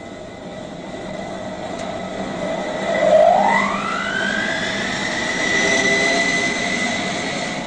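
Belt-driven spoked pulley and its drive running up to speed: a mechanical whine that glides up in pitch about three seconds in, then holds steady over a constant hum.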